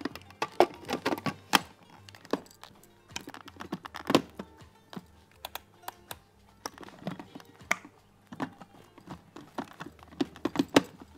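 Irregular plastic clicks and knocks of a food processor's clear lid being fitted, twisted and pressed into place on its bowl.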